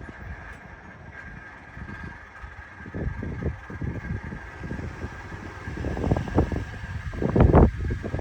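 Cold start of a Ram 2500's 6.7-litre Cummins inline-six diesel in freezing weather. A steady high whine runs throughout, and an irregular low rumbling builds, loudest about seven and a half seconds in as the engine cranks and begins to catch.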